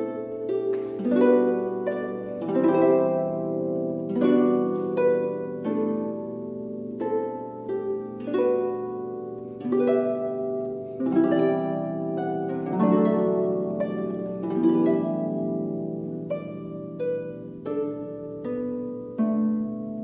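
Slow instrumental background music: a harp playing a melody of plucked notes over a held low note.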